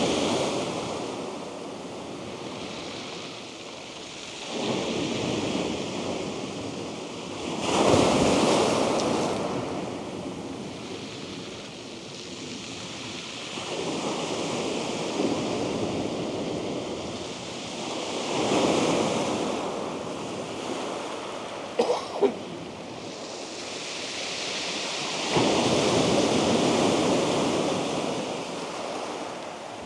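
Surf breaking on a beach, the wash swelling and fading in surges every few seconds. Two brief clicks sound a little past the middle.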